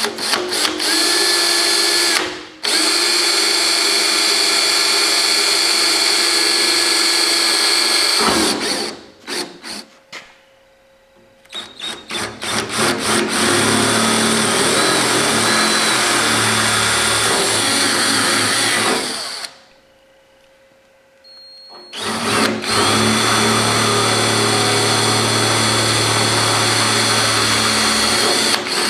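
Cordless drill boring pilot holes through a sheet-steel truck hood, stepping up from a small bit: four steady runs of a few seconds each, with short stuttering blips of the trigger between them.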